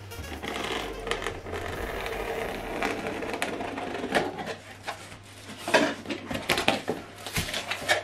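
A knife slicing along the packing tape of a cardboard box in one continuous rasping cut for about four seconds. Then sharp crackles and knocks as the cardboard flaps are pulled open.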